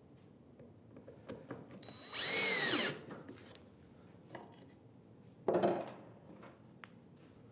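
Cordless drill-driver driving a screw into a softwood batten: the motor whines for under a second about two seconds in, its pitch rising then falling. A shorter, louder burst of noise follows about three seconds later.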